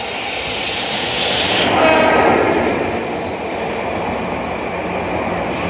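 An electric locomotive hauling a delivery of new subway cars passes close by, its wheels running over the rails. A short horn blast sounds about two seconds in.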